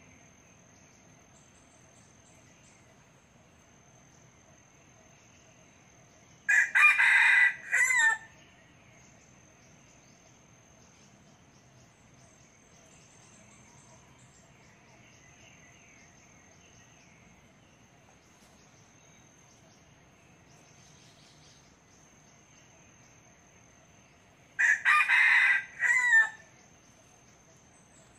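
Red junglefowl rooster crowing twice, about eighteen seconds apart; each crow is short, about a second and a half, and broken into a few quick parts.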